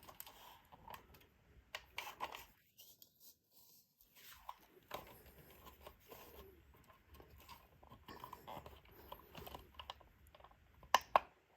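Scattered light clicks and rustling as a rechargeable fan is handled, with a sharper click near the end.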